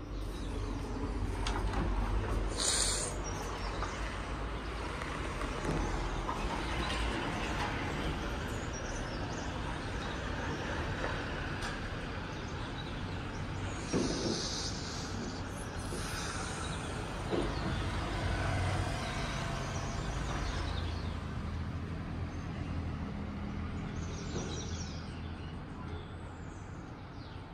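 Outdoor ambience: a steady wash of distant road traffic with a low rumble, broken by a short high hiss about three seconds in and another around fourteen seconds.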